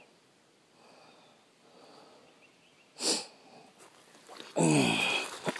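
A man's voice without words: a short sharp sniff about three seconds in, then a brief loud vocal outburst that falls in pitch, sneeze-like.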